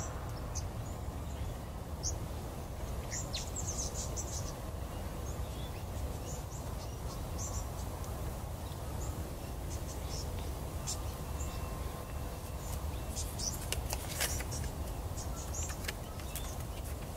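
Outdoor bush ambience: birds chirping sporadically over a steady low background noise, with a few brief rustles near the end.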